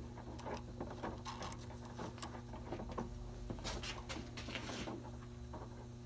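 Scattered light clicks, scrapes and rustles of a steel wire-rope cable assembly and its shackle hardware being handled, busiest about halfway through, over a steady low hum.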